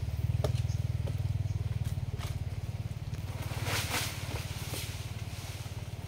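Chainsaw engine idling with a steady low pulsing run. Scattered scrapes and clicks from climbing against the bark sit over it, the loudest about four seconds in.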